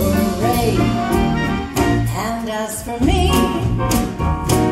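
A woman singing live into a microphone, backed by a band of electric guitar, bass guitar and drums.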